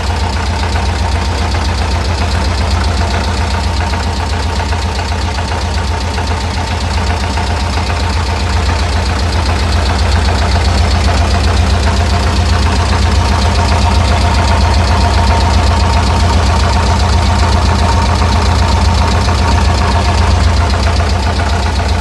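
Air-cooled 1600 flat-four engine of a VW Kombi running steadily while hot, with a fast, even knocking in its note. The owner suspects an oil-starved, dry-running bearing near the crankshaft; camshaft lifters and connecting-rod play have also been suggested.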